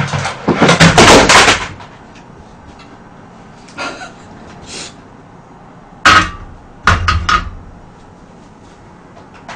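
Kitchenware handling: a loud, noisy clatter lasting about a second and a half, then a sharp knock about six seconds in and a quick run of knocks and clanks around seven seconds, as a frying pan of oil is set down on a portable gas stove.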